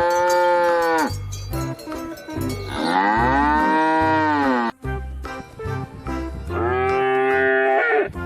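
A cow mooing three times: long, drawn-out moos that rise and then fall in pitch. The first trails off about a second in, and the middle one is the longest.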